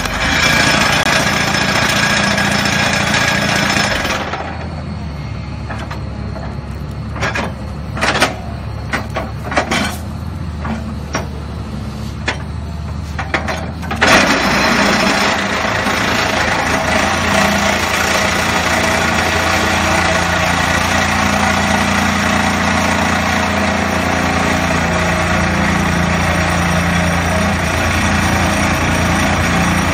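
BEIYI excavator-mounted hydraulic vibro plate compactor vibrating against gravel, over the excavator's running engine. The loud vibration drops away about four seconds in, leaving the engine with a few sharp knocks, and starts again at full strength about fourteen seconds in.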